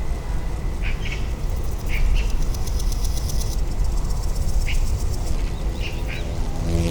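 Outdoor lakeside ambience: a steady low rumble with a handful of short bird chirps, and a fine high buzz lasting a second or so near the middle.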